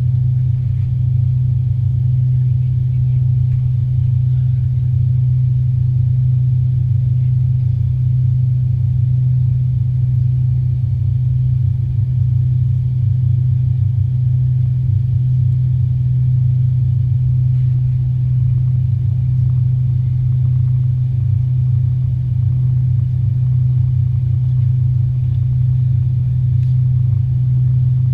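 Steady low drone inside the cabin of an Avro RJ85 airliner, its four Honeywell LF507 turbofan engines running, with an even deep hum and no change in pitch or level.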